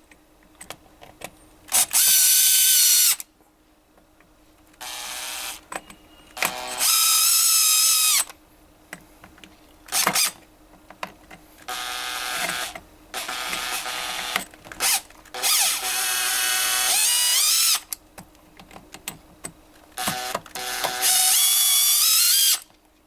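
A power screwdriver with a Phillips bit backs out the screws of a massage chair's junction box cover. It runs in about half a dozen short whirring bursts of a second or two, its whine gliding up and down in pitch as the motor speeds up and slows.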